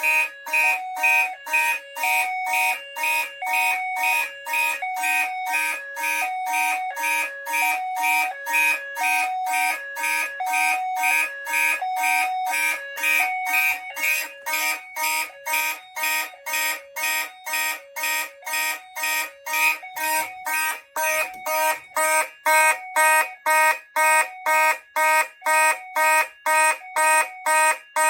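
Fire alarm horns, including a Gentex Commander 3 mechanical horn and a Federal Signal 450D, sounding together in march time at about two pulses a second, with a lower two-note tone alternating about once a second; more tones join about twenty seconds in. The panel is in alarm after a pull station's test switch was activated.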